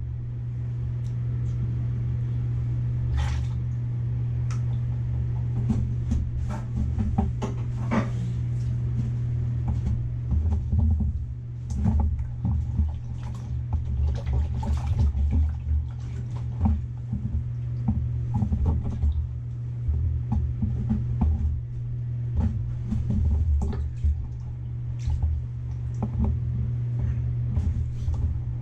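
A steady low hum with irregular clicks and knocks over it.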